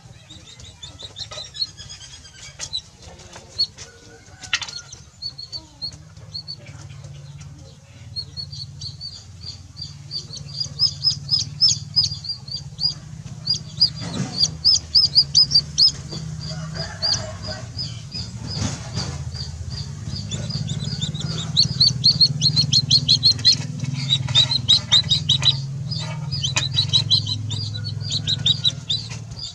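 A baby chick peeping rapidly and over and over in short high calls, louder in stretches in the middle and in the last third, over a low steady hum.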